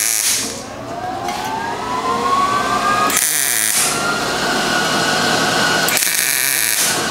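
MIG welder striking short tack welds on 20-gauge sheet steel: brief bursts of crisp crackle like sizzling bacon, about three seconds apart. This crisp sizzle is the sign of a welder set up right for the sheet metal.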